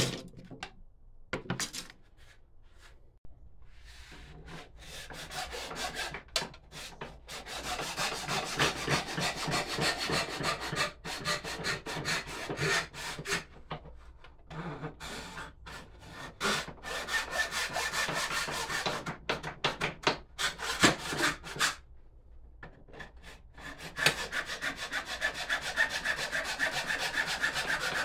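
Hand tool scraping through wood in quick, repeated back-and-forth strokes, stopping and starting several times.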